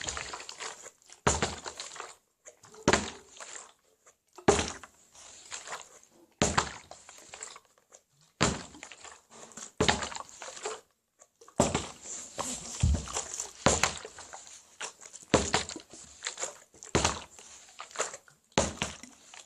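Plastic water bottle being tossed and landing over and over, each landing a thunk with a short slosh, about every one and a half to two seconds: repeated bottle-flip attempts.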